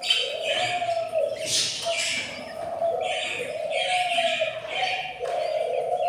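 Budgerigar chicks in the nest box giving raspy begging calls, repeating in a steady rhythm about once a second.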